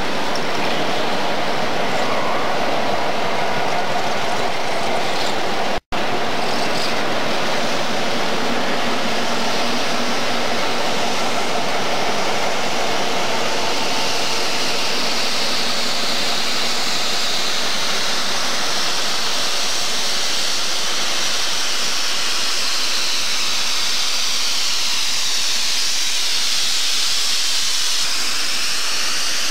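Chicago Central & Pacific diesel locomotives running past at close range, their engines and wheels on the rails making a loud, steady noise. The sound cuts out for an instant about six seconds in.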